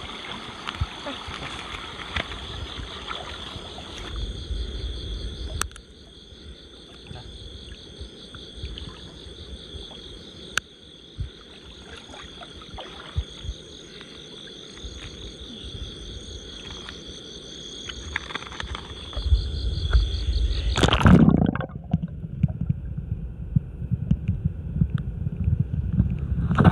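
A steady, high-pitched night chorus of insects and frogs, with a plastic sack rustling as a fish is put into it. About 20 seconds in, the camera plunges into the river: the chorus cuts off and gives way to a low, muffled underwater rumble.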